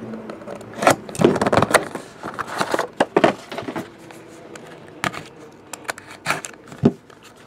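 Trading-card box being opened and the cards handled: scattered scrapes and rustling with several sharp clicks and taps.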